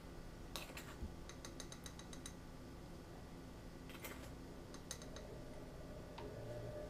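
Faint clicks and light clinks of measuring spoons knocking together and tapping against the blender jar as powdered sugar is spooned in, including a quick run of ticks in the second second. A faint low hum comes up near the end.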